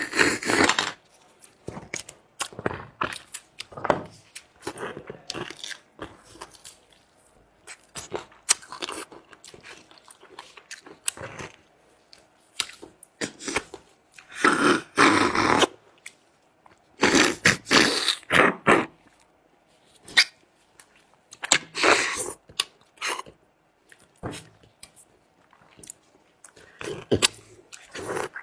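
Close-miked eating sounds of sucking and gnawing marrow from lamb leg bones: wet slurps and clicks in irregular bursts, the longest a few seconds in the middle.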